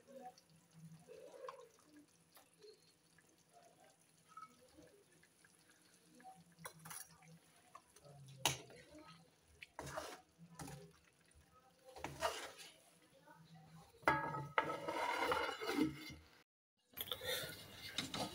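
Faint, scattered clinks of a metal spoon against a metal karahi wok, growing into a couple of seconds of denser scraping and clatter near the end.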